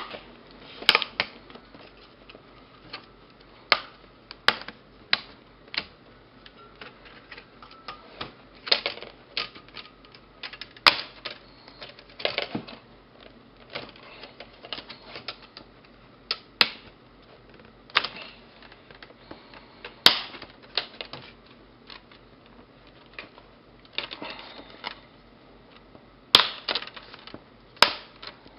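Plastic clips of a Toshiba Portege Z835 laptop's screen bezel clicking and snapping as the bezel is pried off the display. The sharp clicks come irregularly, about one every second or two, sometimes in quick clusters.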